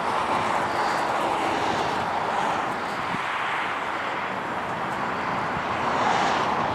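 RC model airplane in flight: a steady rush of propeller and air noise with a faint motor hum, swelling slightly about six seconds in.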